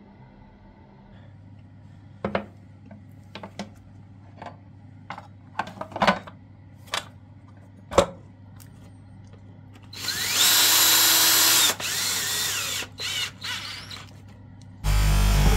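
A run of sharp clicks and knocks, then a Ryobi 18 V cordless drill running in a burst of about two seconds and a few shorter spurts, driving bolts into the engine's front cover.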